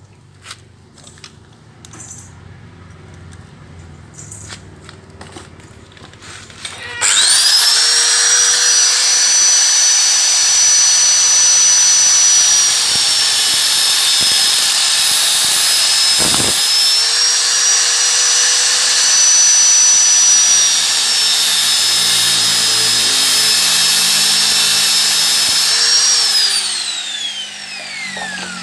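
An electric cutting tool starts about seven seconds in and runs with a steady high whine while cutting open a steel camshaft bearing from a motorcycle cylinder head. The whine dips briefly midway and winds down with a falling pitch near the end. Before it starts there are only light handling clicks.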